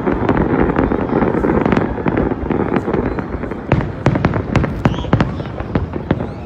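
Fireworks going off in quick succession: a dense run of bursts, then many sharp crackling pops from about halfway.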